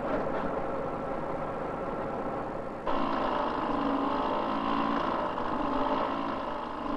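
Steady machine noise, then about three seconds in a sudden switch to a small motor-driven rail tool running on the track, a steady hum that wavers slightly in pitch.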